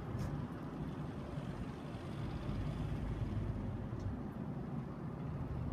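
Wind buffeting a phone's microphone, giving a steady, uneven low rumble.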